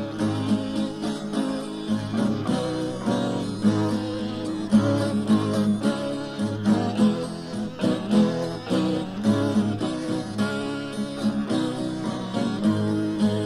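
Instrumental break in a folk song: acoustic guitar playing a run of plucked notes and chords, with no singing.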